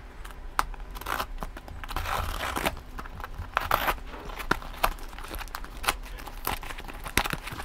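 A utility knife slicing and scraping through a cardboard parcel, with irregular sharp clicks. Near the end the cardboard is torn open by hand.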